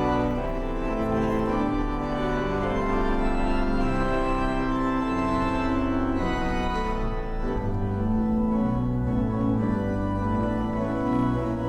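Organ playing held chords that change every second or so over a moving bass line.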